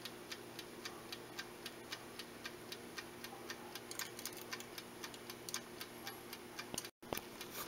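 Aroma ABT-106 rotisserie grill running, with its wind-up timer ticking evenly several times a second over the low steady hum of the motor that turns the skewers. The ticking means the timer is counting down from the 20 minutes just set.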